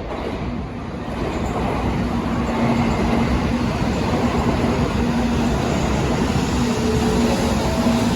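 Shinkansen bullet train passing through the station at speed: a loud, dense rushing noise that builds about a second in and then holds steady.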